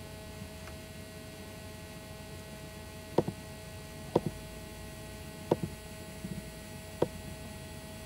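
Steady electrical mains hum with a few sharp clicks, most of them in quick press-and-release pairs, from a computer mouse.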